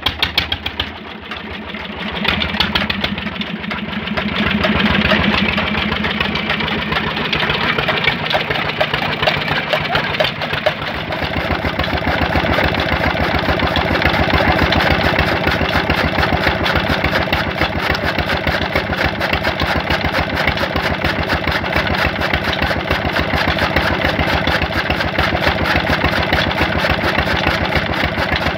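Small stationary diesel engine running, its exhaust beating in quick, even pulses just after starting. About eleven seconds in the sound settles into a steadier, fuller run as the engine drives a belt-driven chaff cutter chopping green fodder.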